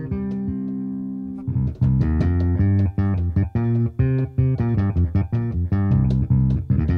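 Bass part of a chill electronic track, played from the Maschine MK3 pads. A held low note gives way about a second and a half in to a run of short, plucked-sounding bass notes.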